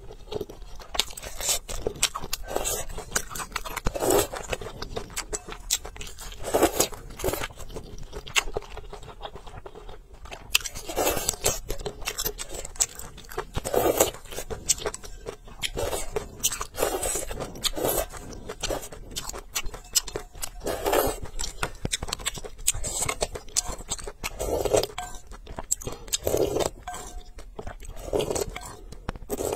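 Close-up mouth sounds of a person eating noodles in soup: repeated slurps every second or two, with wet chewing and mouth clicks between them. A spoonful of broth is sipped near the end.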